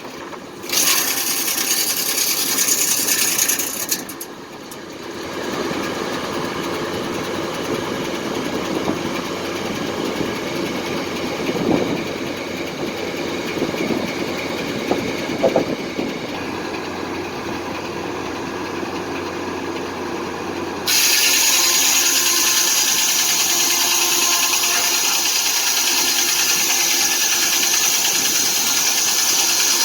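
Foley Belsaw circular sawmill running, its motor and circular blade making a steady mechanical din. The sound changes abruptly about 4 seconds in and again about 21 seconds in, the last part louder and hissier.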